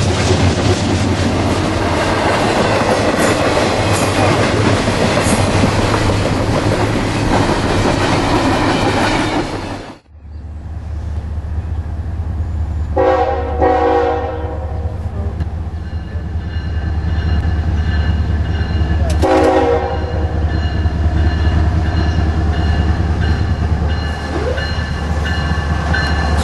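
A double-stack container freight train passes close by with loud, steady wheel-on-rail noise. After a cut, an approaching Norfolk Southern diesel locomotive rumbles steadily and sounds its multi-tone horn twice, a longer blast about halfway through and a short one a few seconds later. It comes up close near the end.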